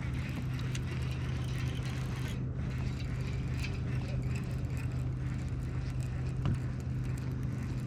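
Boat motor running with a steady low hum, unchanged throughout, with a few faint ticks over it.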